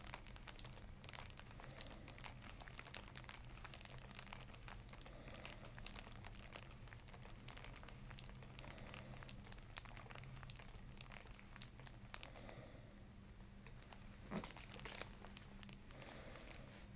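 Faint, dense crackling rustle of fingers kneading the muscles at the base of the skull, working against hair and the paper on the headrest. It thins out after about twelve seconds, with a louder rustle about fourteen seconds in.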